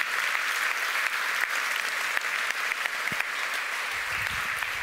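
Conference audience applauding steadily at the end of a talk: a dense, even clapping. A few soft low thumps come near the end.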